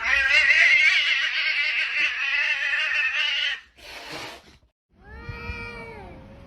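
A cat's long, wavering yowl of about three and a half seconds, followed by a short hissy burst of noise and, after a brief silence, a shorter call that falls in pitch at its end.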